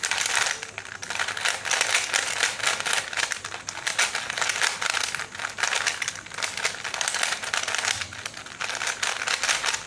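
A 3x3 Rubik's Cube being scrambled by hand: its plastic layers turning in a quick, steady stream of clicks and clacks.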